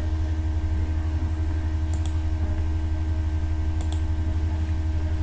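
Two faint computer mouse clicks, about two seconds and four seconds in, over a steady low hum.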